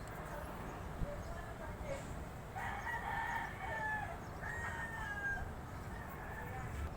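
A rooster crowing in the background, two main crows about two and a half and four and a half seconds in, each ending in a falling note.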